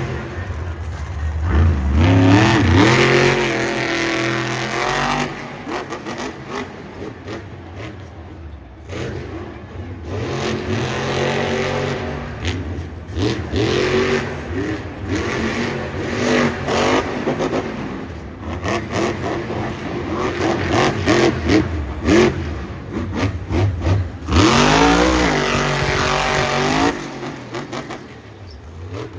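Monster truck's supercharged V8 revving again and again, its pitch sweeping up and down in surges, with quieter spells between them. The loudest surges come a few seconds in and again near the end.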